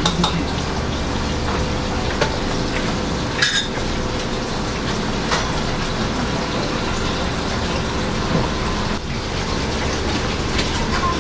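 Steady kitchen background noise like running water, over a low machine hum, with a few light clicks.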